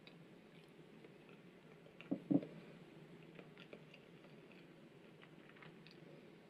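Quiet eating sounds at a table: soft mouth and chewing noises with scattered light clicks, and two short low thumps close together about two seconds in.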